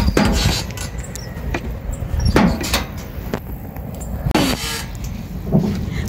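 Gusting wind rumbling on a phone microphone, with several sharp knocks and bumps of handling as it is carried about a plastic playground frame.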